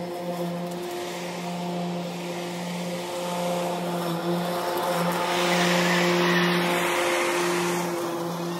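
Electric zero-turn mower running with its blades spinning, growing louder as it passes closest about two-thirds of the way through and then fading as it moves away, under steady background music.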